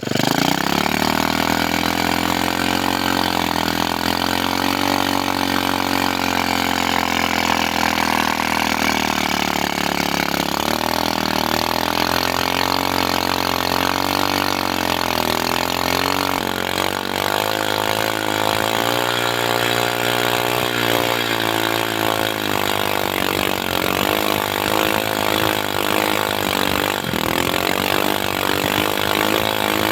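Motorcycle engine powering a log-hauling winch, running continuously with its pitch wavering under load. About halfway through the note drops lower and turns rougher and more rattly.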